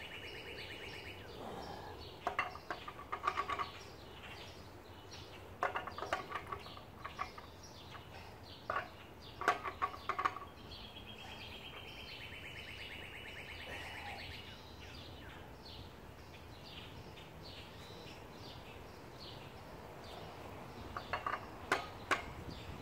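Clusters of sharp metal clicks and clanks as a chisel bit is fitted into the bit holder of an electric demolition hammer (jackhammer). A bird trills twice in the background.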